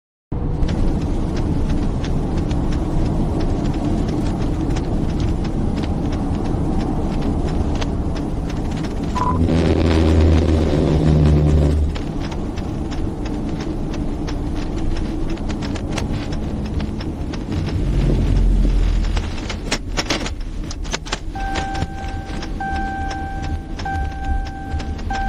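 Patrol car cabin noise: engine and road rumble while the car drives and slows to a stop on the shoulder, with a heavier rumble twice along the way. Near the end come a few clicks, then an in-car electronic chime that beeps steadily, just over once a second.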